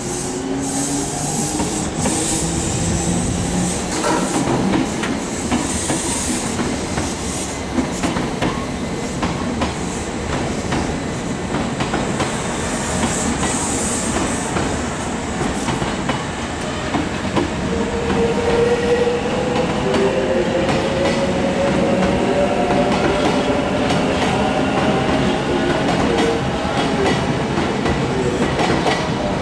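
Kintetsu electric trains running through station trackwork. The traction motors whine in a slowly rising pitch as a train pulls away and gathers speed, over a steady rumble with the wheels clacking across rail joints and points.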